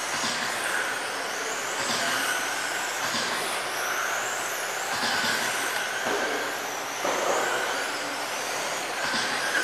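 Several 1/10-scale USGT electric RC touring cars with 21.5-turn brushless motors racing: high motor and gear whines gliding up and down as the cars accelerate and brake, swelling every second or two as cars pass.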